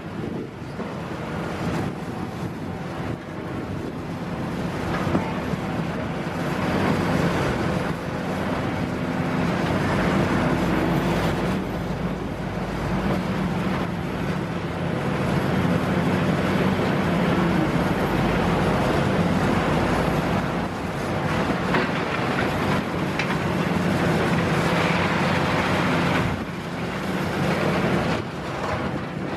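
Liebherr R960 demolition excavator's diesel engine running under load as its hydraulics work the boom, growing louder a few seconds in and easing briefly near the end.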